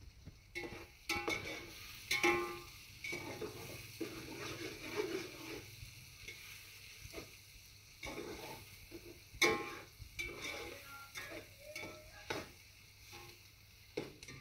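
Sliced onions frying in oil in a steel pot with a faint steady sizzle, while a metal spoon stirs them, scraping and clinking irregularly against the pot.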